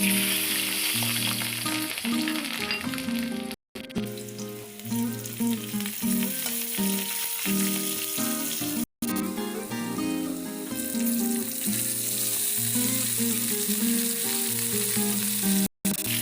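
Food sizzling as it fries in hot oil in a pan, over background music, with three brief drop-outs to silence at edit cuts.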